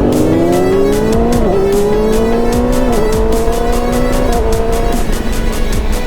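Yamaha R6's inline-four engine on its stock exhaust, accelerating up through the gears: the engine pitch climbs steadily, then drops sharply at three upshifts about a second and a half apart.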